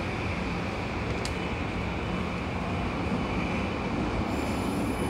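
SkyTrain metro train running at an underground station track: a steady rumble, with a high electric whine joining near the end.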